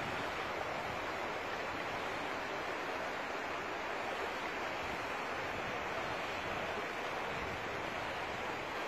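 Steady rushing of floodwater flowing across a flooded street.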